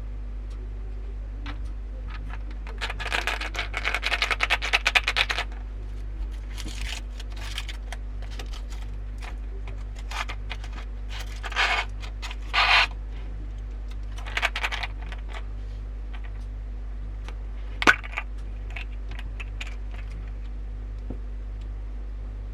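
A rapid run of light clicking clatter, small hard pieces tumbling against each other and a surface, followed by a few shorter clattery scrapes and one sharp click. A steady electrical hum sits underneath throughout.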